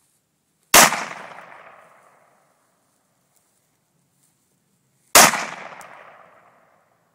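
Two single shots from an AR-15 rifle, about four and a half seconds apart, each a sharp crack that dies away over about a second and a half.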